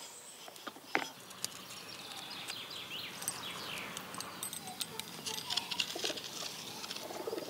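A metal multi-wheel pastry cutter rolling through soft spinach dough on a wooden board, after a wooden rolling pin: soft pattering and many small clicks and rattles. Birds chirp faintly in the background.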